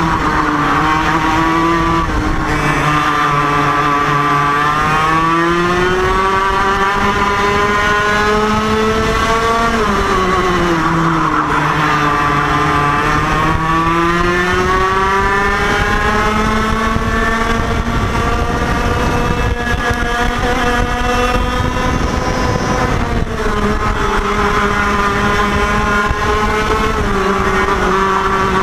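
IAME KA100 100cc two-stroke kart engine at racing speed, its pitch falling as it slows for corners and rising again on the straights, several times over.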